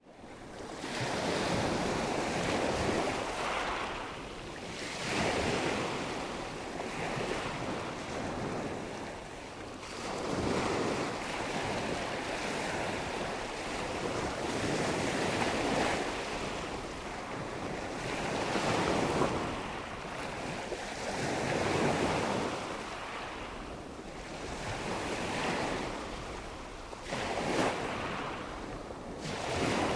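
Ocean waves breaking and washing on a shore, a continuous hiss of surf that swells and ebbs with each wave every few seconds.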